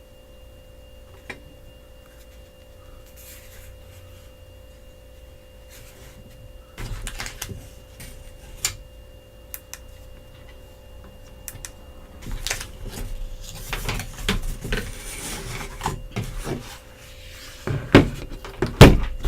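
Hands handling a power bank and its cardboard box and packing: scattered clicks and rustling, busier in the second half, with two loud knocks near the end. A faint steady high tone sounds through the first part and stops a little past halfway.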